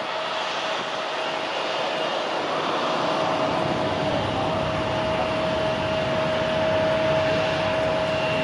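Airliner engines running: a steady loud rush with a constant whine. A low rumble fills in after about two seconds and the noise grows slightly louder.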